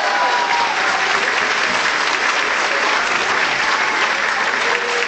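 Audience applauding steadily, as the last notes of the dance music die away just after it starts.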